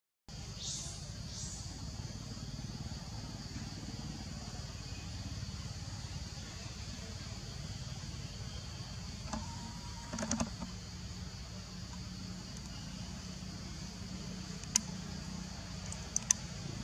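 Steady background noise: a low rumble under an even high hiss, with a brief sound about ten seconds in and a few sharp clicks near the end.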